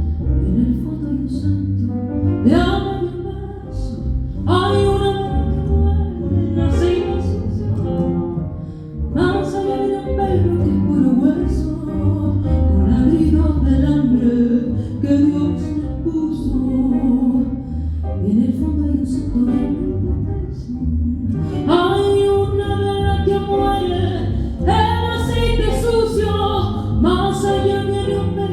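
Live band music: a woman singing phrases over guitar, with a full, heavy low end.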